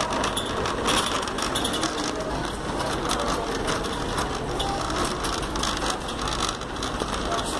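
Metal shopping cart rolling over a store floor, its wire basket and wheels rattling and clattering steadily.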